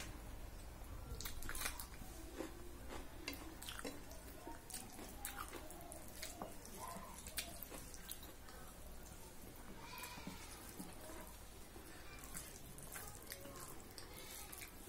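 Eating by hand: irregular wet clicks and smacks as fingers mix rice with dal and curry on a steel plate, along with chewing.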